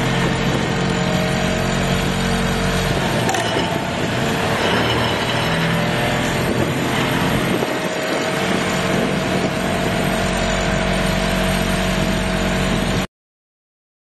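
Excavator-mounted vibratory sheet-pile hammer and the excavator's diesel engine working a steel sheet pile: a steady mechanical drone that turns rougher and noisier through the middle, then cuts off suddenly near the end.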